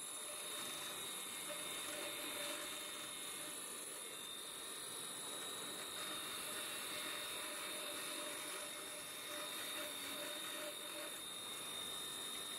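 Titan bench grinder running with its wire brush wheel scrubbing rust off a steel suspension arm held against it: a steady hiss with a constant motor whine.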